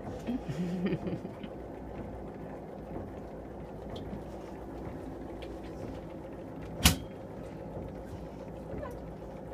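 Underwater treadmill in a hydrotherapy tank running with a steady motor hum. A single sharp knock sounds about seven seconds in.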